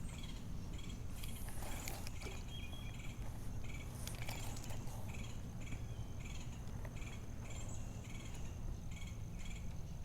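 Insects chirping in a steady rhythm, about two to three high chirps a second, over a continuous thin high buzz.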